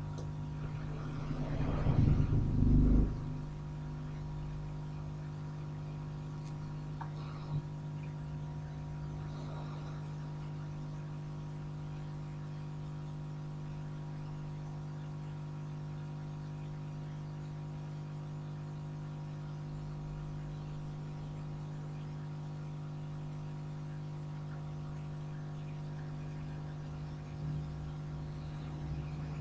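Hot air rework station running at 380 °C to desolder a shorted diode from a phone board: a steady blower hum with a louder rush of noise about two seconds in and a single click a few seconds later.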